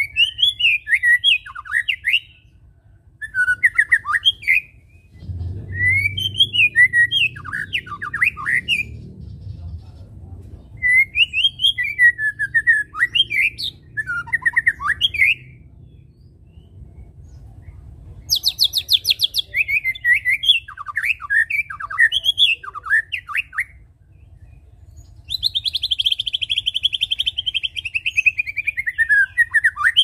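White-rumped shama singing: phrases of rapid, varied whistled notes lasting a few seconds each, broken by short pauses. About eighteen seconds in comes a high rattling run, and near the end a long buzzy trill that falls in pitch.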